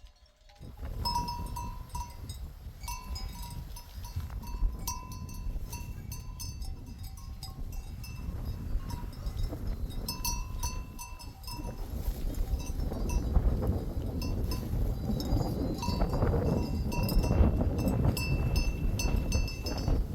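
Small bells clinking and ringing at a few fixed pitches, on and off, over a low rumble that grows louder in the second half.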